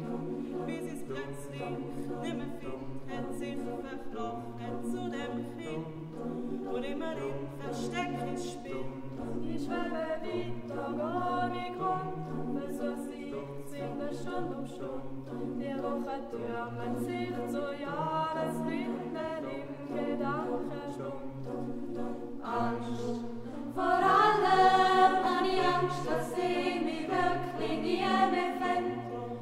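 Youth choir singing a cappella in several parts, a low voice line moving in long held notes beneath the upper voices. The choir gets louder about 24 seconds in.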